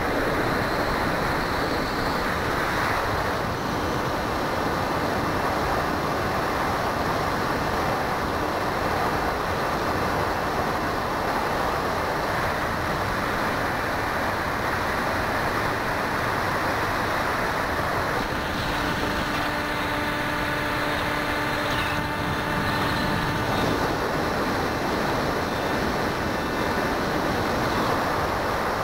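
Steady rush of wind and propeller noise picked up by a keychain camera riding on a flying RC plane. A little past the middle, a steady pitched hum with several overtones comes through the noise for about five seconds, the plane's motor heard more clearly.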